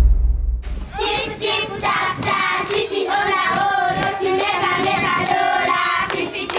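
Background music with percussion cuts off about half a second in; then a group of children sings together, with hand claps.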